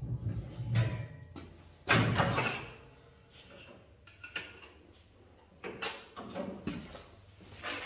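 Manual sheet-metal folding brake being worked: a handful of metallic clanks and thuds from its beams and the sheet metal, the loudest a sudden one about two seconds in, with smaller ones later.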